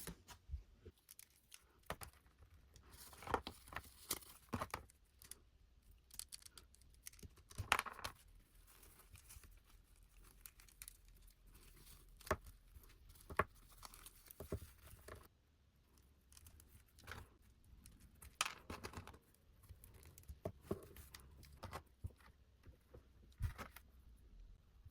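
Doll packaging being opened and handled: scattered rustles, crinkles and light clicks, a few at a time with short pauses between.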